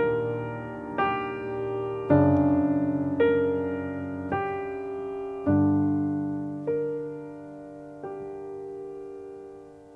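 Solo piano playing a slow phrase of notes and chords, struck about once a second and left to ring and fade; the strikes space out and the last one dies away near the end.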